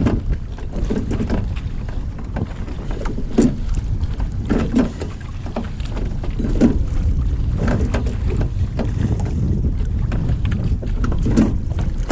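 Wind rumbling on the microphone, with irregular knocks and splashes from a rowing boat's oars working in the water, spaced a second or more apart.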